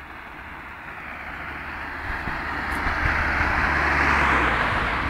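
A motor vehicle drawing near, its engine and tyre noise growing steadily louder over several seconds, with a low engine hum coming in about halfway through.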